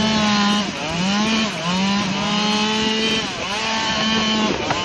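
Two-stroke chainsaw running at high revs, its pitch dipping briefly three times before it drops off near the end.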